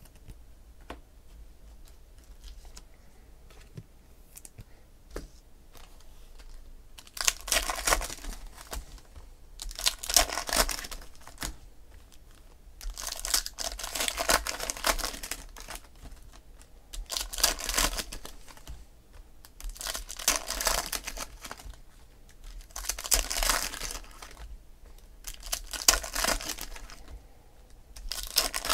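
Foil trading-card pack wrappers being torn open and crinkled by hand: a run of crackling rustles every two to three seconds, starting about seven seconds in, with only faint clicks of card handling before that.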